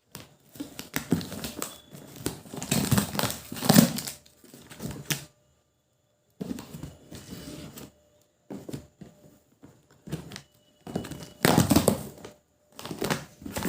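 Grocery packaging crinkling and rustling as it is handled and opened, with occasional knocks of items being set down, in irregular bursts broken by several short silences.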